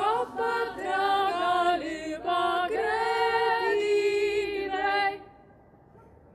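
A woman singing a traditional folk song solo and unaccompanied, a single voice moving from note to note; the singing stops about five seconds in.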